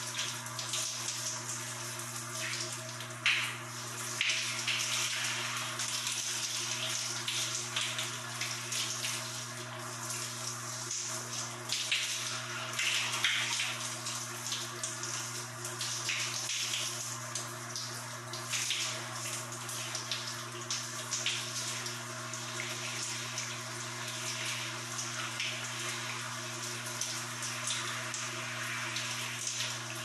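Shower water spraying from a showerhead and splashing, a steady hiss with uneven splashes. A steady low hum runs underneath.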